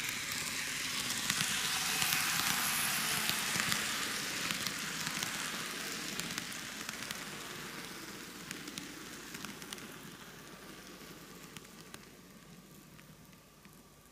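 TOMIX N-gauge model train (733 series EMU) running on curved track: a rattling, hissing rumble of wheels on rail with scattered sharp little clicks, loudest a few seconds in and then fading away steadily as the train moves off.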